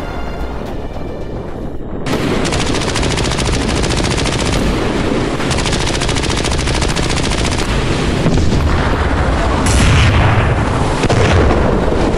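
Background music for about two seconds, then cut off by rapid, continuous machine-gun fire, a dense run of shots that grows louder near the end: battle sound effects.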